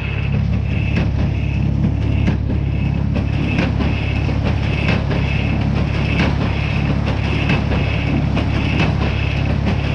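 Tractor engine running steadily, driving an old square hay baler, with a regular mechanical beat about one and a half times a second as the baler's plunger cycles and some sharp clacks from the machine.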